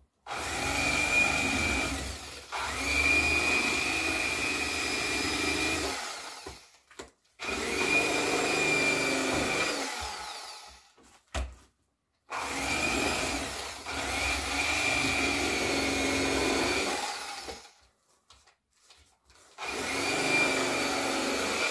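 Electric fillet knife running in five bursts of a few seconds each, a steady high whine that stops and starts, as its blade slices fillets from a yellow bass.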